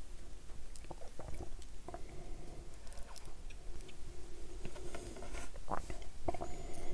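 Close-miked chewing and wet, sticky mouth sounds from eating sauce-covered buffalo chicken wings, with scattered soft clicks and smacks, a little louder near the end.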